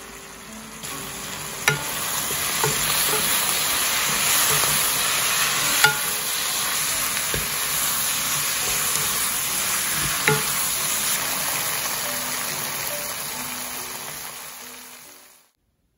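Pork and vegetables sizzling in a hot frying pan as they are stir-fried in a thick gochujang sauce, with a few sharp clacks about four seconds apart. The sizzle builds about a second in and fades away near the end.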